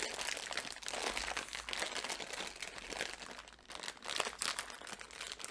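Plastic candy bag of Hershey's Kisses crinkling and rustling in irregular bursts as it is handled and opened, with a short lull partway through.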